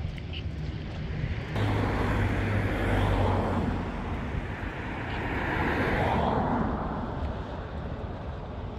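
Powered watercraft, a jet ski or speedboat, running past at speed: an engine drone under a rushing hiss. The sound swells suddenly about a second and a half in and again around six seconds.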